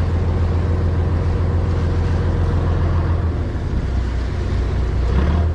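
Fishing boat's engine running steadily at a low hum; about three and a half seconds in its note drops lower as it is throttled back.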